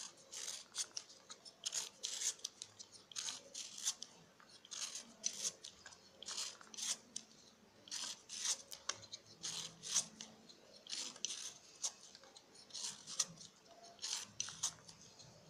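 Metal vegetable peeler scraping the skin off a raw green mango in short, repeated strokes that come in irregular runs.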